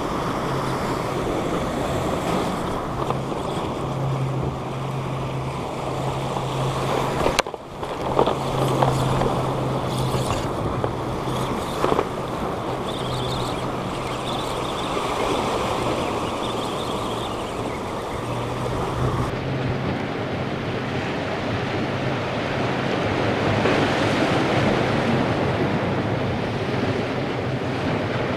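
Sea washing against a rock wall, with wind on the microphone and a steady low hum underneath. There are a few sharp knocks between about seven and twelve seconds in.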